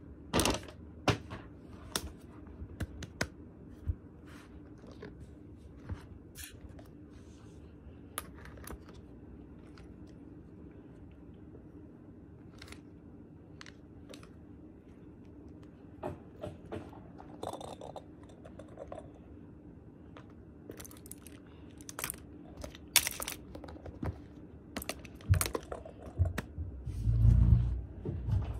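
Handling noise from the phone and the fidget toys being moved about on a rug: scattered light clicks, taps and rustles, busier in the last third, with a low bump against the microphone a little before the end.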